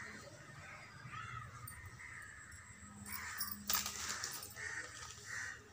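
Crows cawing several times, with handling noise from cloth and a plastic wrapper and one sharp crackle about two-thirds of the way in.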